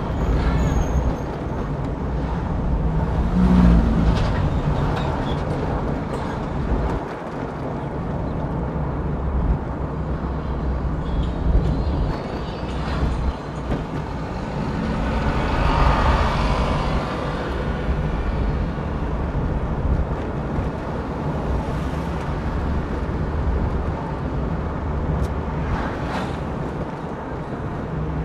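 Road and engine noise inside a moving car's cabin: a steady low rumble with tyre hiss, swelling for a few seconds about halfway through.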